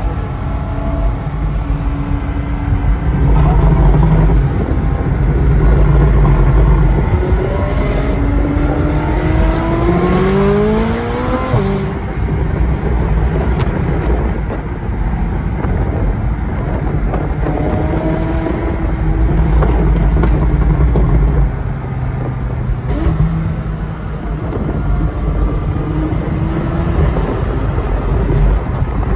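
McLaren 570S twin-turbo V8 with sport exhaust, heard from inside the cabin, pulling under load over a steady low road rumble. About ten seconds in, the engine note climbs for a couple of seconds and drops sharply at an upshift. Shorter climbs in pitch follow later.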